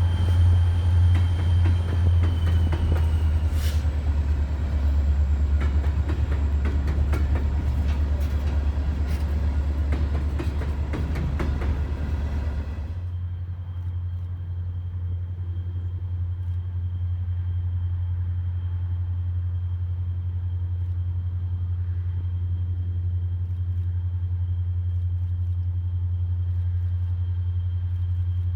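Canadian Pacific ballast train rumbling past for about the first half, then a sudden change to a quieter, steady low hum like a car's cabin on the move.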